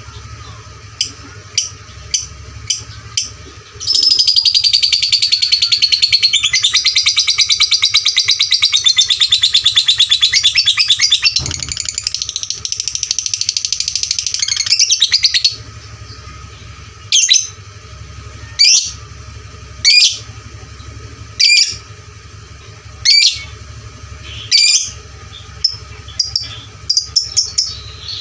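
Lovebird singing: a few short chirps, then one long unbroken high-pitched chattering trill of about eleven seconds (the 'ngekek' of a lovebird), then a string of loud, sharp single calls about a second and a half apart. A steady low hum runs underneath.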